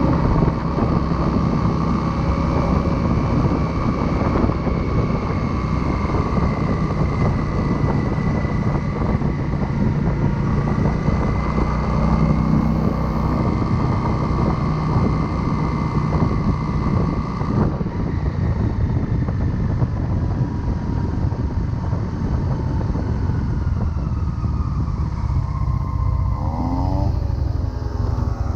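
Motorcycle engine running steadily while riding, mixed with wind rush on a chest-mounted microphone. Near the end there is a quick rise in pitch.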